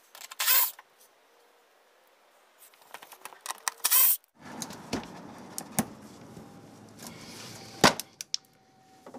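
Fasteners of a BMW 330i's plastic engine undertray being worked loose with a hand tool from below. There are short scraping rattles, then a few sharp isolated clicks, the loudest near the end, over a faint steady hiss.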